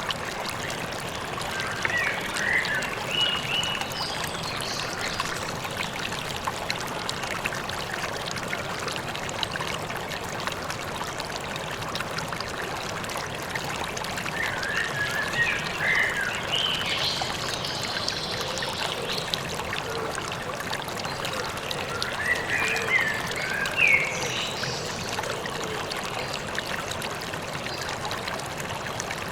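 River water flowing steadily, with small birds chirping over it in three spells: near the start, around the middle, and toward the end.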